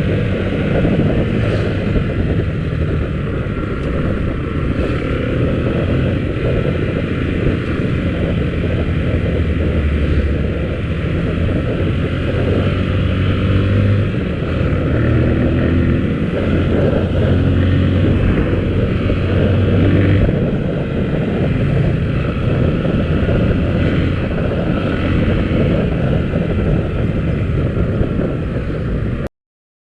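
Motorcycle engine running under way, its pitch rising and falling with the throttle, under a steady rushing noise. The sound cuts off abruptly near the end.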